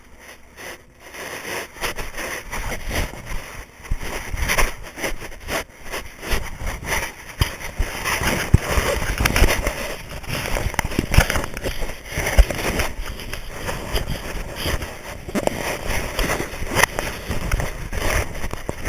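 Handling noise from a covered action camera: irregular rubbing, scraping and knocking against the housing and microphone, with many small clicks.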